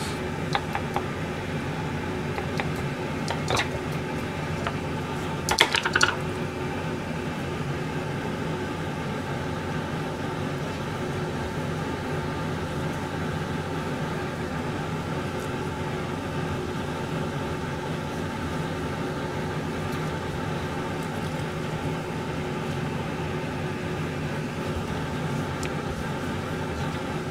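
Steady mechanical hum of a running kitchen appliance. A few light clicks and knocks come in the first six seconds, the loudest cluster about six seconds in.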